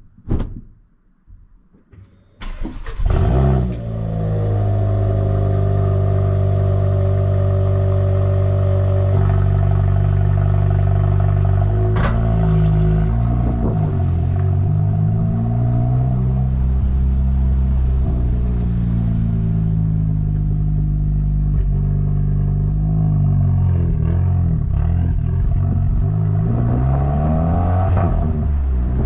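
Hyundai i20N's 1.6-litre turbocharged four-cylinder engine cold-started through its valved exhaust. It cranks briefly a couple of seconds in, catches with a rev flare, then settles into a steady high cold idle. About halfway through there is one sharp crack, and the revs then dip and rise several times, climbing near the end.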